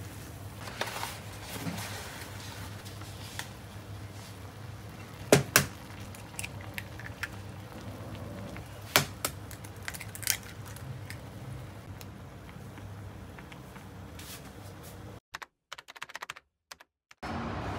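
Cookware and utensils being handled while cooking: scattered light clicks and taps, with a few sharper knocks around the middle, over a steady low hum. The sound drops out briefly near the end.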